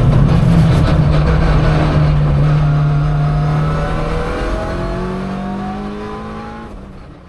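Mitsubishi Lancer Evolution IX's turbocharged four-cylinder engine running hard at steady revs, then rising in pitch from about halfway as it accelerates, while the sound fades away toward the end.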